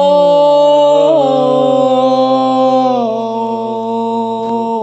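Voices singing one long held note together in a chant-like chord, the pitch stepping down slightly about three seconds in.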